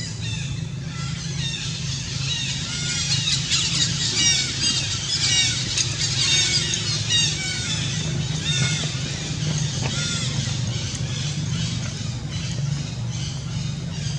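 Many short, high-pitched squealing chirps from animals, overlapping at several a second and busiest in the middle stretch, over a steady low hum.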